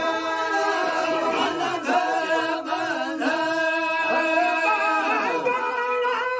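A group of men singing a Sindhi molood unaccompanied: a steady held note runs underneath while voices move through the melody above it.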